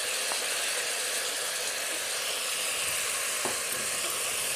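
Sprouted moong, diced potato and tomato sizzling steadily in hot oil in a pressure cooker while being stirred with a wooden spatula, with a couple of faint taps.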